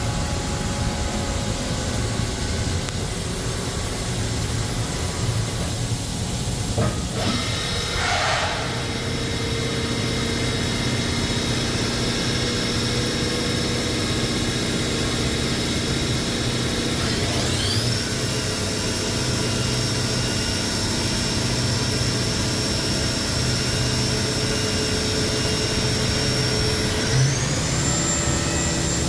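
Haas VF-12 CNC vertical machining center running: a steady mechanical hum under several high whining tones. The whine steps up in pitch three times, gliding up each time to a new steady level, and there is one brief downward swish about a quarter of the way in.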